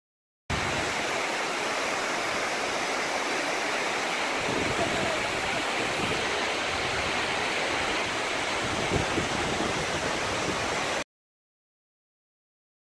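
Shirahige Falls pouring into the Biei River: a steady, even rush of falling water. It starts abruptly about half a second in and cuts off suddenly near the end.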